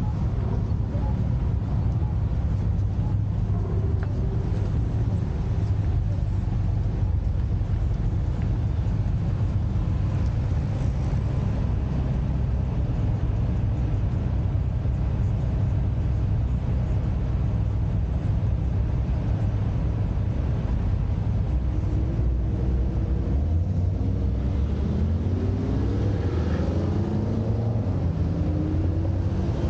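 Car engines running at a standstill with a steady low rumble. About three-quarters of the way through, an engine starts to rise in pitch, then repeatedly climbs as a car accelerates away.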